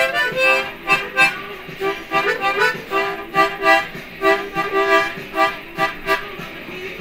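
Harmonica played with both hands cupped around it: short rhythmic chords blown in quick pulses, tapering off near the end.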